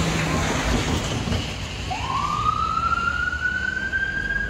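An emergency vehicle siren starts a wail about two seconds in, gliding quickly up in pitch and then holding a high note. Underneath is a steady rumble and rush of passing vehicles.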